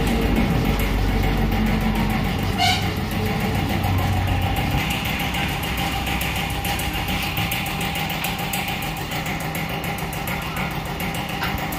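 A workshop machine's motor hums steadily with a low drone that fades out a little before halfway, and a single short metal clank comes about a quarter of the way in.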